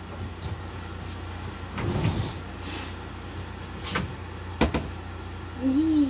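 Shop vac hose and nozzle clunking and knocking against furniture: a few separate knocks, the sharpest and loudest a quick double knock about two-thirds of the way through, over a steady low hum.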